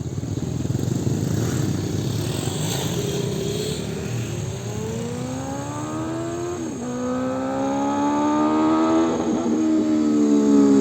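Benelli TnT 600's inline four-cylinder engine accelerating hard through the gears as the motorcycle approaches. After a few seconds of low rumble, the engine note climbs, drops sharply at two upshifts and climbs again, growing louder near the end.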